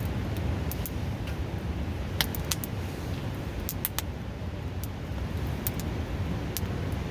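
Wood campfire crackling, with scattered sharp pops and a cluster of them a couple of seconds in, over the steady low rush of a river close by.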